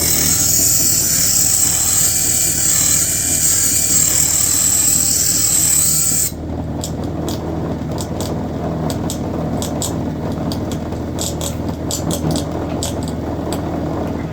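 Bench grinder motor running with a steady hum while a metal piece is ground to a beveled edge on the wheel: a loud high grinding hiss for about the first six seconds, which stops suddenly. The motor then runs on with scattered light ticks.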